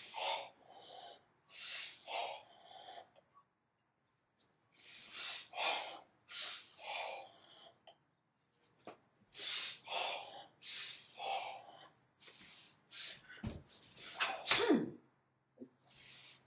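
Karate practitioners' forceful, hissing breath exhalations, timed to the kata's movements, coming in repeated short bursts, often two together. Near the end there are a few sharp knocks and one brief, louder vocal exhalation.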